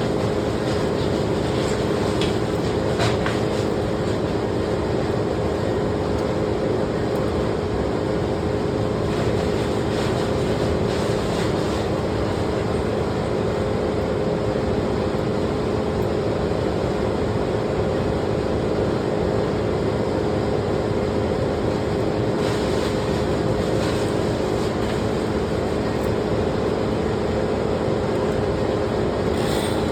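An engine running steadily at one constant speed, without revving.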